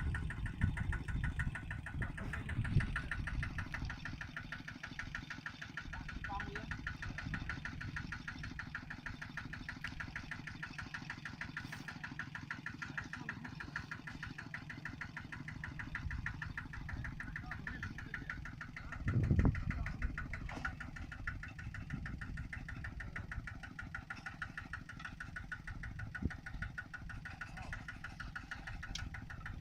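A small engine running steadily, with one louder low thump about two-thirds of the way through.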